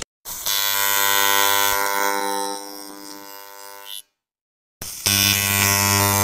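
AC TIG welding arc on aluminium, buzzing steadily, in two stretches with a short silent gap about four seconds in; each stretch starts with a brief spurt as the arc strikes.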